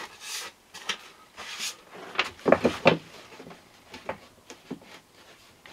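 A wooden board being handled against a timber cabinet frame: a run of knocks and short scrapes, with the loudest cluster of knocks about halfway through.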